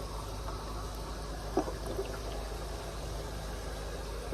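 Steady trickling, bubbling water over a low continuous hum, with one short tap about a second and a half in.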